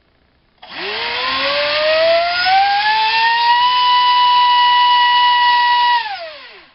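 Racerstar BR2406S 2300 kV brushless motor spinning an APC electric 5x5 propeller on a 5S battery. A whine with a whooshing rush rises in pitch for about three seconds as it throttles up, holds steady at full throttle for about two seconds, then drops and fades as it spins down near the end.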